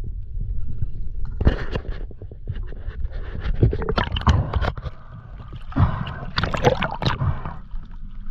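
Sea water sloshing and gurgling around a diver at the surface in ocean swell, in irregular splashy bursts over a steady low rumble.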